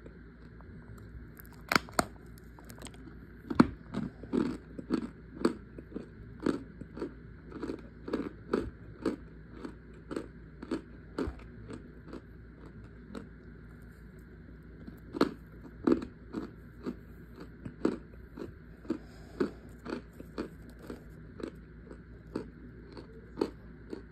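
Compressed cornstarch chunks being bitten and chewed, crunching sharply about twice a second, with a pause of a few seconds around the middle.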